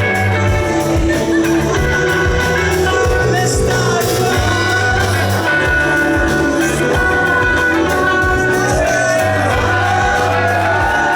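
Rock band playing live at a steady loud level: singing over a sustained bass line and drums.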